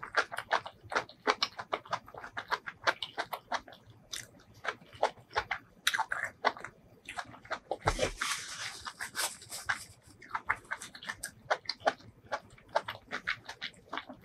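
Close-miked wet chewing and mouth smacking from someone eating spicy sauced seafood and enoki mushrooms: a quick, uneven run of sharp clicks and smacks, with a longer, hissier stretch about eight seconds in.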